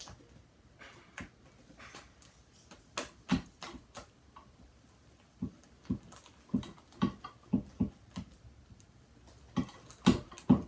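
Slime being kneaded and squeezed by hand, giving wet pops and clicks at irregular intervals, with a cluster of louder ones near the end.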